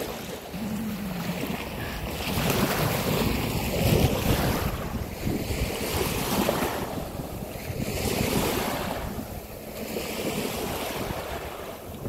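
Small sea waves washing on a sandy beach, with wind buffeting the microphone: a steady rushing that swells and eases every couple of seconds.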